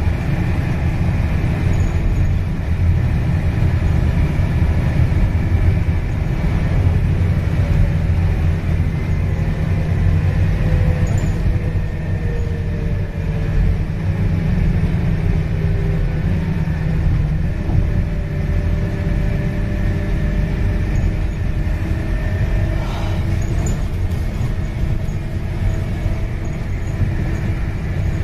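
Scania K230UB single-deck bus under way, heard from inside the passenger saloon: its five-cylinder diesel engine and running noise make a steady low drone. Faint tones in it slide up and down as the speed changes, and there is one brief rattle late on.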